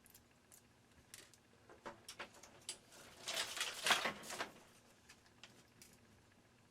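Light clicks and plastic rattling from fingers handling a miniature Christmas light bulb and its small plastic socket, with a denser burst of crinkly rattling about three seconds in.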